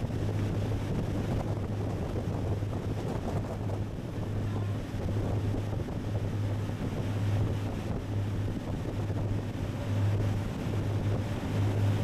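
Motorboats running at speed on open water: a steady low engine drone with the rush of the wake and spray, and wind buffeting the microphone.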